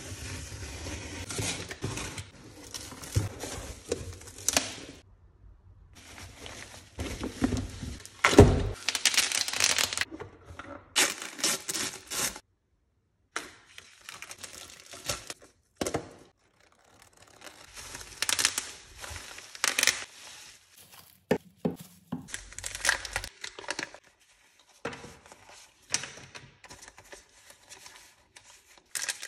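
Close-up unboxing handling sounds: a utility knife slitting packing tape on a cardboard box, then wrapping and paper tearing and crinkling as scrapbook supplies are unpacked and leafed through. The sounds come in short bursts separated by brief silences.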